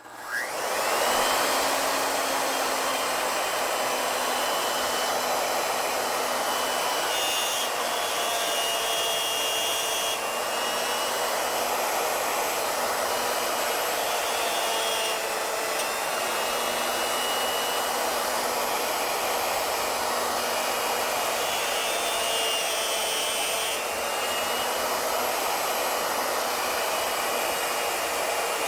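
A wood router starts up, its whine rising over about a second, then runs steadily while its 3/8-inch two-flute straight bit cuts a chip-relief groove in wood a little at a time. Its pitch shifts slightly now and then as the cut loads it.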